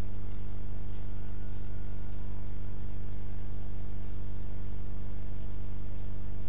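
Steady electrical mains hum with a buzzing stack of overtones and a faint hiss over it, unchanging throughout.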